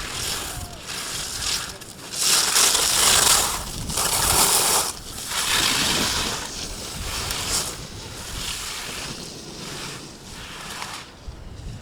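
Ski edges scraping and hissing on hard snow through a run of slalom turns, one rough hiss per turn about every second, loudest a few seconds in and fading away near the end.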